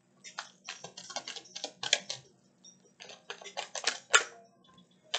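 Tarot cards being shuffled and handled by hand: quick papery card clicks and flicks in about three bursts.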